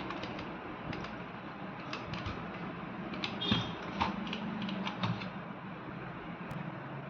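Microwave oven control board powered up for testing on the bench: irregular light clicks over a steady low hum, with a short high tone a little past three seconds.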